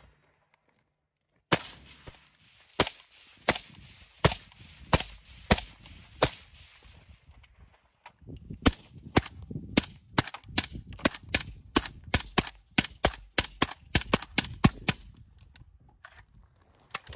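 Suppressed semi-automatic rifle gunfire: about seven single shots at an even pace, then after a short pause a longer, faster string of shots, roughly three a second, and one last shot near the end.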